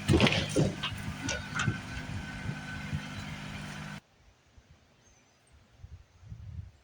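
An engine running steadily under repeated sharp cracks and clattering knocks of wood breaking as the shed is torn down. About four seconds in the sound cuts off abruptly to a much quieter stretch with a few faint low thumps.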